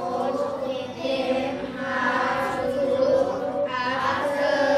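A class of young children reading an English story aloud together in unison, many voices blending into one chanted chorus.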